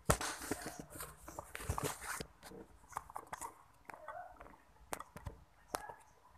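Camera phone being handled right at the microphone: a loud knock at the start, then about two seconds of rubbing and scraping, then scattered knocks and three sharp clicks near the end.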